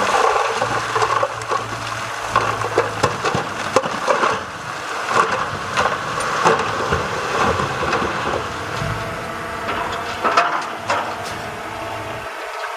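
Stones and soil tumbling and rattling, with many sharp knocks, over a running engine, as a load of stone and soil is dumped from a truck.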